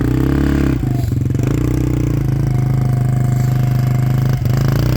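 Small ATV's engine running steadily under thumb throttle. Its note dips briefly about a second in and again near the end.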